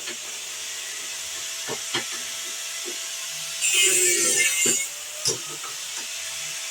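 Angle grinder at work on an aluminum horseshoe. It spins freely with a steady whine, cuts into the metal in one loud burst about four seconds in, and there are a few sharp metal knocks in the pauses.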